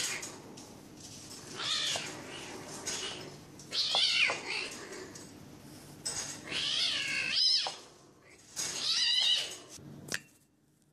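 Bengal kittens play-fighting, with a kitten meowing four times, about two seconds apart. A sharp click near the end.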